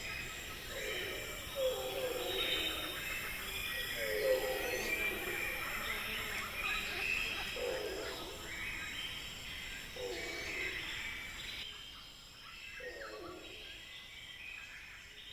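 Jungle soundscape of birds calling: a low hooting call repeats about every two seconds over higher chirps and calls, with a steady high-pitched pulsing drone behind them.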